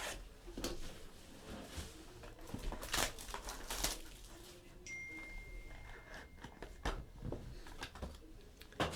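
Scattered taps, clicks and rustles of a trading-card box and its packaging being handled and opened, with the sharpest clicks about three and four seconds in. A faint steady high tone sounds for a couple of seconds past the middle.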